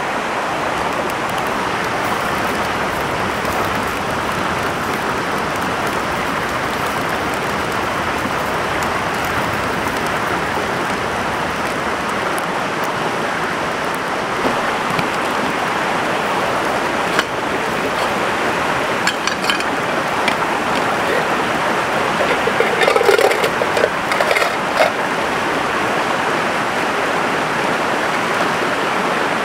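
Stream water rushing steadily, with a few small knocks and clicks in the second half.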